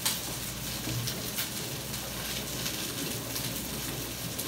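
Hot pasta water pouring from a pan through fettuccine into a stainless steel colander in a metal sink: a steady splashing hiss.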